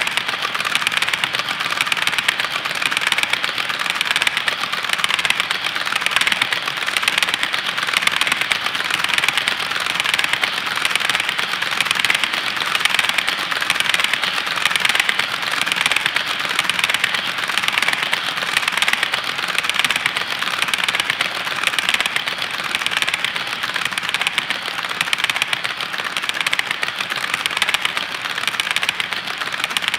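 HO-scale model coal hopper cars rolling over the track, their metal wheels clicking steadily and rapidly over the rail joints in a continuous clatter.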